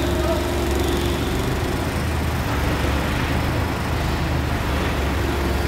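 Forklift engine running steadily with a low rumble, with a steady higher hum over it for about the first second.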